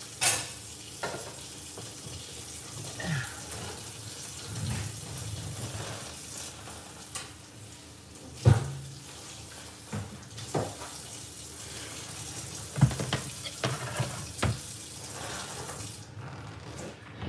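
Kitchen tap running into a sink, a steady rush of water with scattered knocks and clatter of dishes, shut off a second or so before the end.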